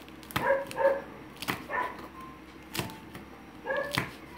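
Kitchen knife slicing green chili peppers on a wooden chopping board: about four sharp knocks of the blade on the board, roughly a second apart. Short, high yelps are heard between the cuts, the loudest about half a second in.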